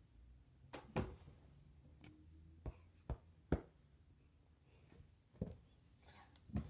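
Light knocks and taps from small toys being handled and set down, about six separate short knocks spread through, over faint room hum.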